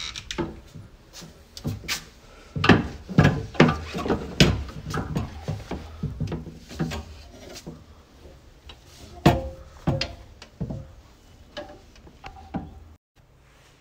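Wooden clothes hangers clacking and sliding on a wardrobe rail as clothes are pushed along and handled: a run of irregular knocks, loudest a few seconds in and again near the middle.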